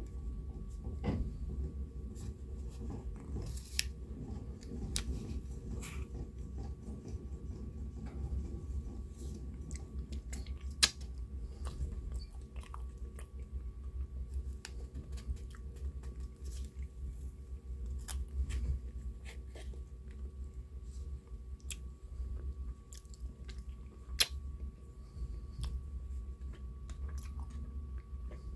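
Close-up eating of a soft chocolate fondant cake with whipped cream: chewing and wet mouth sounds, with many sharp clicks scattered throughout, over a steady low hum.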